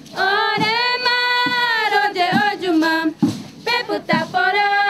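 Tupi-Guarani women singing a chant together without instruments, in long held, gliding notes. A faint low beat keeps time under the singing about once a second.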